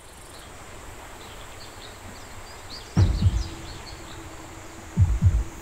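Outdoor ambience with small bird chirps, broken twice by deep low hits, each made of two or three quick pulses: about halfway through and again near the end. A low steady hum comes in after the first hit.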